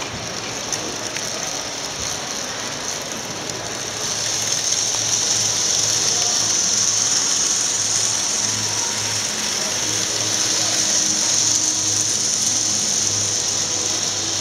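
N-scale model trains running on the layout: a steady mechanical whirr with a high hiss that grows louder about four seconds in, over a low hum.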